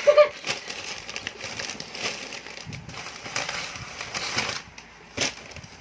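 Shopping packaging handled and rustled, crinkling with scattered sharp clicks and one louder click about five seconds in.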